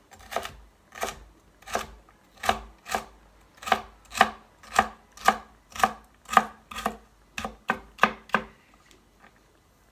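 Kitchen knife chopping carrot into small dice on a cutting board: a steady run of crisp strokes, about two a second, that stops near the end.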